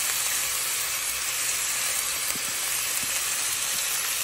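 Ground beef, chorizo, green pepper and onion sizzling in a stainless steel skillet on the stove, a steady frying hiss.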